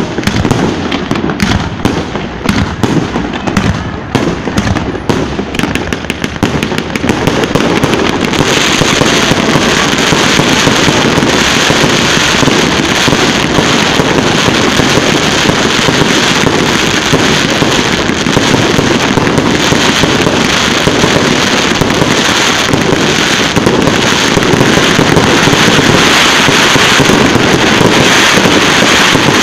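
Fireworks display bursting close overhead. For the first several seconds there are separate bangs of single shells; from about eight seconds in, many bursts go off at once in a dense, continuous rattle of rapid pops.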